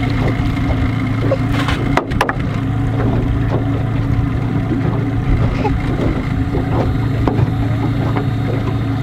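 Boat motor idling with a steady low hum, and a few sharp knocks and clatters about two seconds in while a small catfish is pulled in on a jug line and unhooked.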